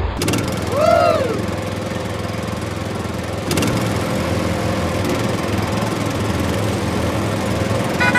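A small engine or motor running steadily, with a brief tone that rises and then falls about a second in. There is a sharp click about three and a half seconds in, after which the running gets a little louder.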